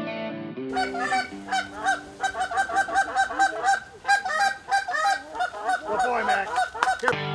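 Geese honking and clucking, many rapid overlapping calls for about six seconds, after guitar music that ends under a second in.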